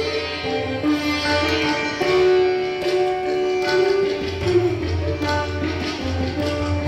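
Sitar playing a Hindustani classical melody in held notes that slide in pitch, with tabla accompaniment that gives a deep, low bass resonance underneath.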